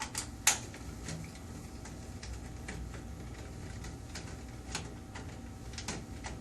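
Screw being backed out of the copier's sheet-metal panel with a screwdriver: one sharp click about half a second in, then a few faint ticks of the screw and tool against the metal.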